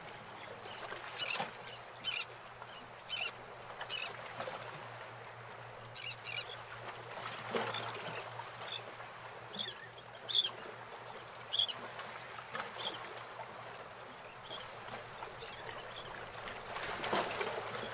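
Birds calling: short, irregular chirps about every second, with a faint steady low hum underneath.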